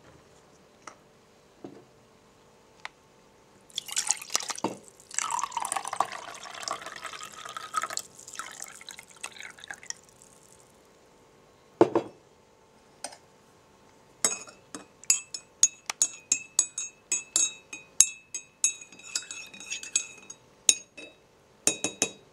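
A cup of tea being made: liquid is poured into a cup for several seconds, something knocks once, then a teaspoon stirs, clinking rapidly and ringing against the china cup.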